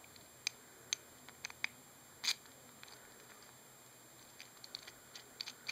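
Small steel hardware clicking against an aluminium carriage plate as a bolt, bearing and lock washer are fitted by hand: a scatter of light, sharp clicks with a slightly louder clink about two seconds in, then softer ticks near the end.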